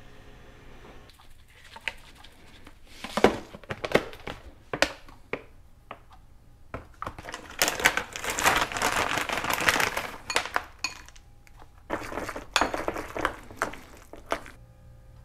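Kitchen food-preparation sounds: a metal spoon clinking and scraping against a ceramic bowl and mug, with a long crinkling of a plastic bag in the middle and more clatter and rustling near the end.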